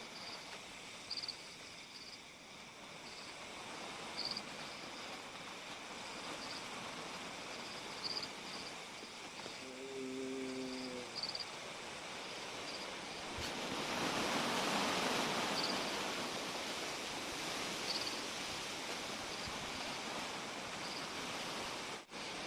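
Night-time outdoor ambience: a steady hiss with scattered short, high insect chirps. About ten seconds in there is a low humming tone lasting about a second, and a louder rush of noise rises and fades between about fourteen and sixteen seconds.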